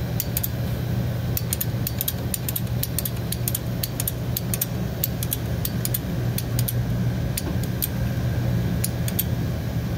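A steady low mechanical hum, like an engine or machine running, with many short light clicks and ticks scattered over it.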